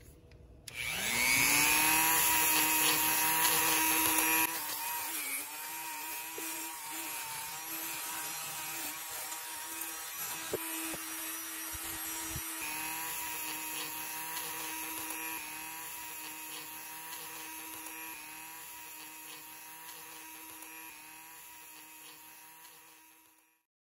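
A small handheld electric power tool spins up about a second in and runs with a steady whine while cleaning the Quadrajet's cast aluminium throttle base plate. It is loudest for the first few seconds, then runs on steadily and fades out near the end.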